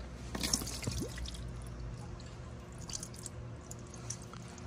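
Spin-on oil filter coming off its mount with a wet squish about half a second in, then hot engine oil running and dripping out of the filter housing.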